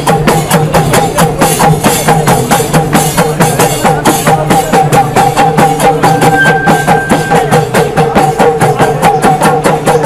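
Music with fast, steady percussion, about five strikes a second, over sustained held tones.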